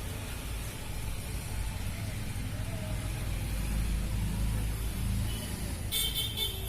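Low rumble of road traffic, with a vehicle horn starting to sound a little before the end.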